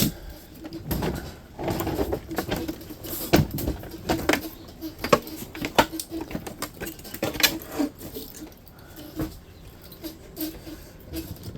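Clicks, knocks and rattles of hand tools and metal parts as a dehumidifier is taken apart for scrap, with a low tone coming and going underneath.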